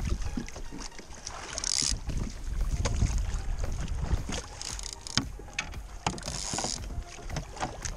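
Wind rumbling on the microphone over water slapping and splashing against a plastic sit-on-top kayak's hull, with a louder hissing splash about two seconds in and again around six seconds, and scattered light knocks.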